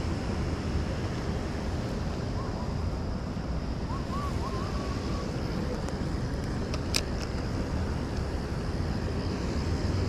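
Wind buffeting the microphone, a steady low rumble throughout. A faint, short warbling whistle comes about four seconds in, and a single sharp click about seven seconds in.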